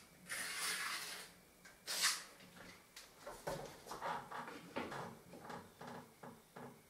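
A spirit level scraping against a plastered wall and a pencil scratching along its edge. A scrape lasting about a second comes first, a sharper, louder one at about two seconds, then a run of short scratchy strokes as the line is drawn.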